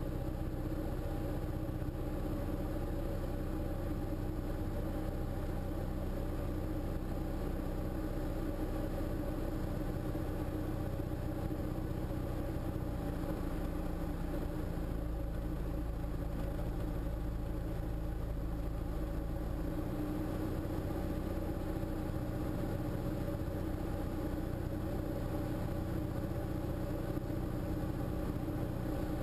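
Single-engine Diamond light aircraft's piston engine and propeller running steadily on final approach, heard inside the cockpit; the engine note shifts slightly about halfway through and again a little later.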